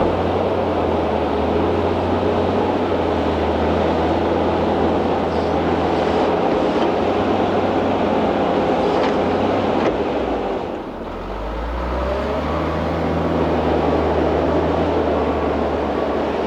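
Heavy diesel engine of a working machine running steadily. About eleven seconds in, the engine note dips briefly, then climbs back up and holds.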